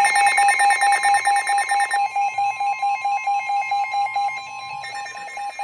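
NOAA weather radios sounding a warning alert: a steady weather-radio warning alarm tone under rapid electronic beeping, about five beeps a second. About two seconds in, part of the beeping's shrill upper sound drops away, and it returns near the end.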